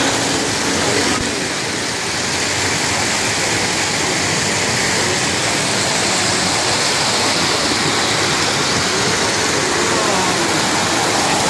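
Several O-gauge three-rail toy trains running on tubular metal track: a steady rolling rush of wheels and motors on the rails.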